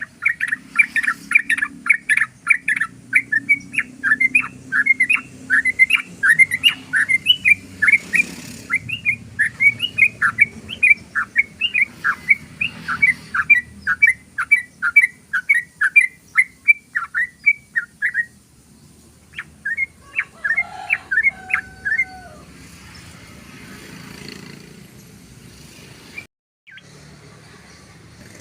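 Yellow-vented bulbul singing a long rapid run of short chattering notes, about four a second, that stops about eighteen seconds in. A shorter burst of notes follows a couple of seconds later.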